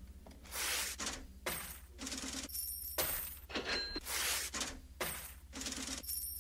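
A run of short crashes, about two a second, some leaving a brief ringing tone: a sound-effect transition rather than music or speech.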